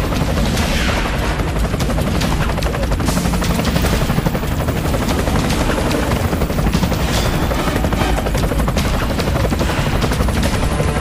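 Helicopter rotor and turbine noise, a steady loud rush with a rapid blade chop.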